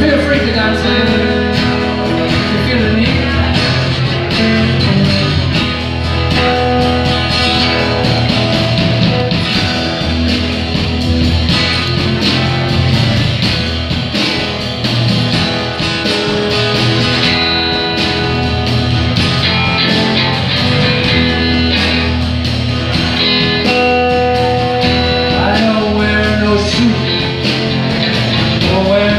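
A rock band playing live: drums, bass guitar, and electric and acoustic guitars, in a steady full-band groove.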